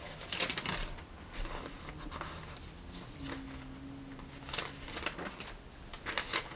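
Paper rustling as pages are handled and turned, in several short scratchy spells a second or two apart.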